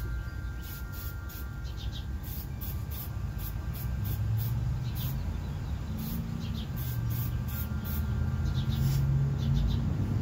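Aerosol spray-paint can being sprayed in many short hissing bursts. A low motor-like hum rises in the background from about halfway through.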